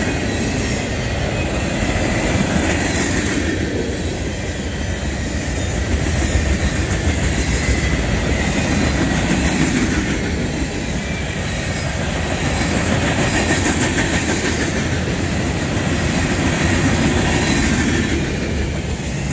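Freight cars of a passing freight train rolling by, their steel wheels running and clattering on the rails. The sound is steady and swells and eases every few seconds as cars go past.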